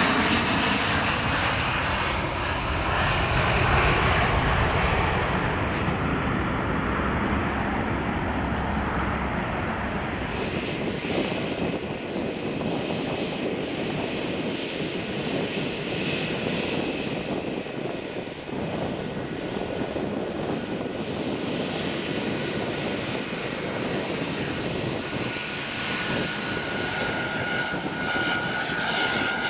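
Boeing 737-300's CFM56 turbofan engines at takeoff power as the jet lifts off, the roar easing away. About ten seconds in the sound changes to the same jet taxiing at low thrust: a steady engine noise with a thin high whine coming in near the end.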